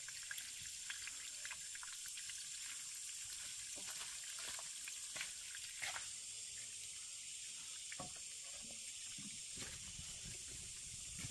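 Soft, steady hiss of running water with scattered light clicks and taps.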